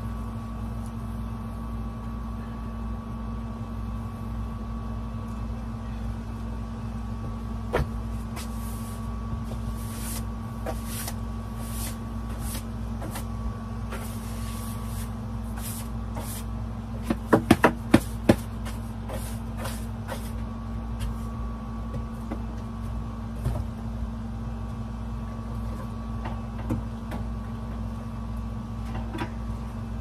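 Steady hum of a running wall-mounted air conditioner, with household handling noises over it: a single knock, a quick run of about five knocks a little past halfway, and a few faint clatters.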